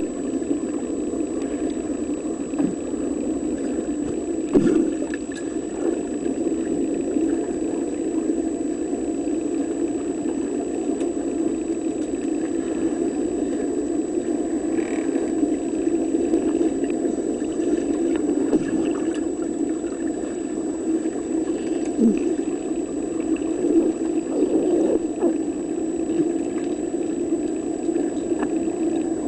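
Steady low motor hum recorded underwater, with a faint high whine and a few soft clicks.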